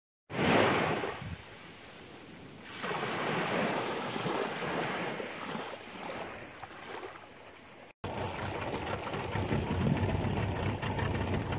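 Small waves washing onto a sandy beach: one wave surges loudly just after the start and another builds about three seconds in and slowly fades. After a cut, a steadier wash of shallow water rippling.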